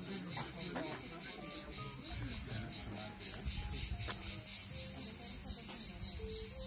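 Insects chirping in a fast, even, high-pitched pulse of about six beats a second, steady throughout, over a faint low rumble.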